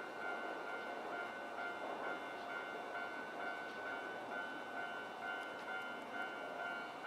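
Japanese railway level-crossing warning bell ringing in a steady, even rhythm of about two strokes a second, over the running noise of a train passing the crossing.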